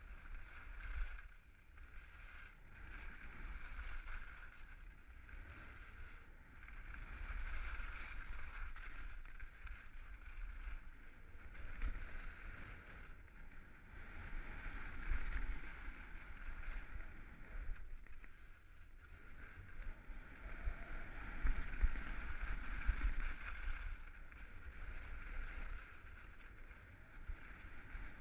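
Skis sliding and scraping over packed snow with a steady hiss that rises and falls through the turns, while wind buffets the camera's microphone with a low, gusty rumble.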